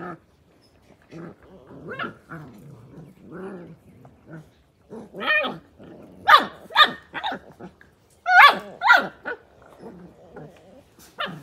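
Australian cattle dog (blue heeler) puppies play-growling and barking as they wrestle. Low growls come first, then a run of sharp, high puppy barks from about five seconds in, loudest around six and eight and a half seconds.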